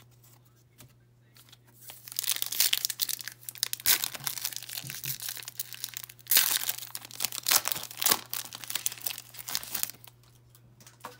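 Foil wrapper of a Panini Contenders football card pack being torn open and crinkled, in two long bouts of crackling: one from about two seconds in, and another from about six seconds in that stops shortly before the end.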